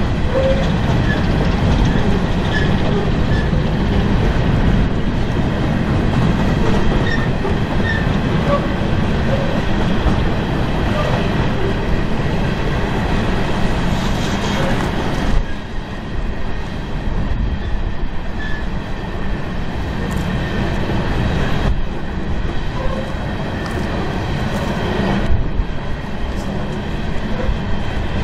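Loaded coal train's hopper cars rolling along the rails: a steady, loud rumble with wheel clatter and scattered short squeals and clinks, easing slightly about halfway through.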